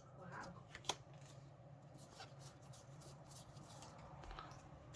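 Faint handling of trading cards, slid and flicked through by hand, with a sharper flick about a second in and another near the end.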